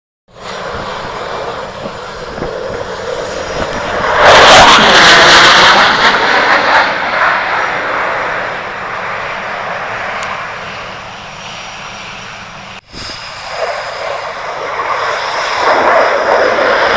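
Aircraft engine noise from arriving aircraft passing. The roar swells sharply about four seconds in with a sweeping whoosh, then fades. After a brief break near the end of the second third, another aircraft's noise builds up.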